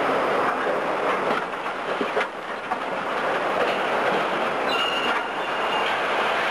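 Demolition of a brick building: a steady, loud clattering din as masonry breaks and a wall section comes down in dust. A few sharp knocks, and a brief high squeal about five seconds in.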